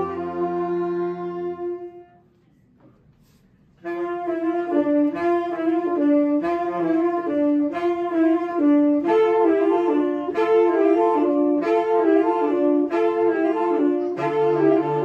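Saxophone ensemble playing a Christmas medley in harmony. A held chord dies away about two seconds in, and after a short pause the group comes back in with a quicker passage of short repeated notes; lower notes join near the end.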